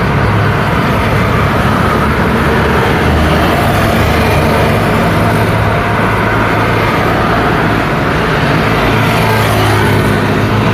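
Road traffic passing close by at night: cars and a minibus driving past, a steady mix of engine hum and tyre noise on the road.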